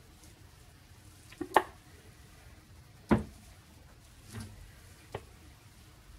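A few short, sharp knocks and taps from handling soapmaking tools on the work table, about four in six seconds, the one about three seconds in the loudest.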